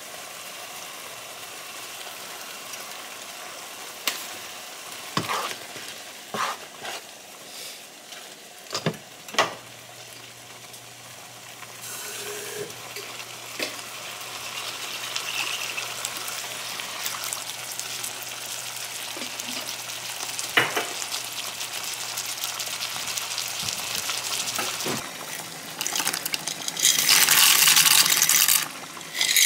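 Ground beef in tomato sauce sizzling in a frying pan, with a wooden spoon stirring it and knocking against the pan now and then. Near the end a louder hiss lasts for about three seconds.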